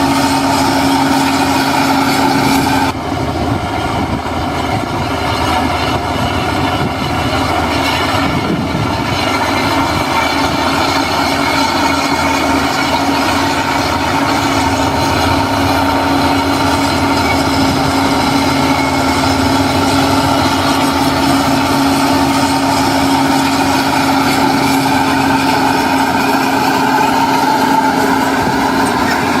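Heavy construction machinery running: a diesel engine with a steady whine. The sound shifts abruptly about three seconds in, then carries on steadily.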